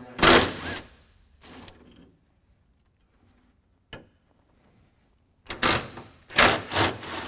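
Cordless drill-driver running in short bursts as it backs out the fasteners holding the truck's grille: two bursts near the start, a single click about four seconds in, then two more bursts near the end.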